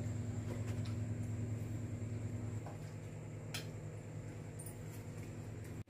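A steady low electrical hum, with a few faint light clicks of a steel ladle against steel serving bowls as curry is dished out.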